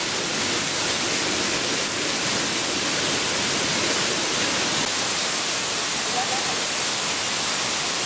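Steady rush of a rainforest stream and waterfall, with faint voices underneath.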